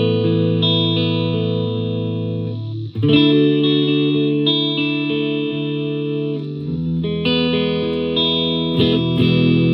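Gibson Les Paul Classic electric guitar with Seymour Duncan SH-1 '59 humbuckers, played through a Fender Mustang LT50 amp on a clean tone. Chords are struck and left to ring for a few seconds each, with a new chord about three seconds in, another near seven seconds, and more strokes near the end.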